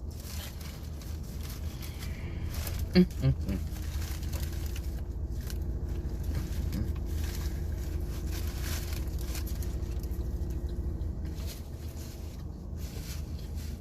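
A person chewing and eating a chicken cutlet grinder sandwich, with faint crackly mouth sounds over a steady low hum, and a short voiced murmur about three seconds in.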